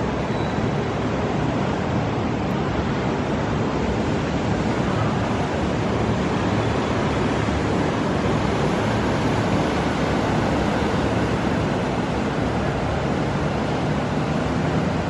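Steady rushing noise like water or wind, even throughout with no distinct events.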